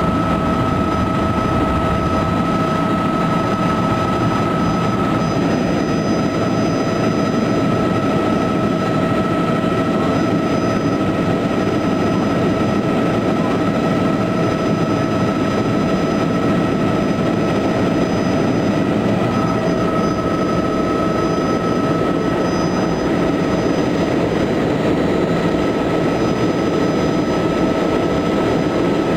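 Helicopter in flight: loud, steady turbine and rotor noise with a constant high whine.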